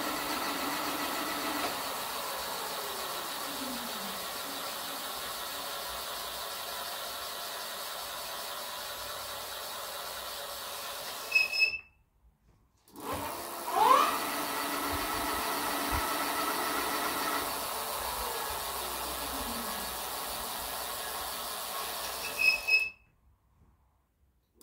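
Rear hub motor of an electric fat bike spinning the raised rear wheel at top speed with no load: a steady electric whine with fat-tyre hum. About halfway it ends in a short high squeal and falls silent, then the whine rises in pitch as the wheel spins back up and runs steadily again, ending in another short squeal near the end.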